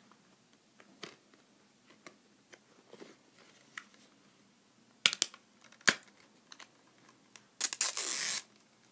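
Plastic shrink-wrap being torn and peeled off a DVD case: faint scattered ticks, two sharp clicks about five and six seconds in, then a short burst of tearing and crinkling near the end.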